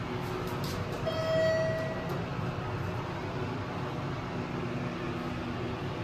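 Passenger elevator car running with a steady low hum as it arrives at a floor. About a second in, a single electronic beep sounds for about a second.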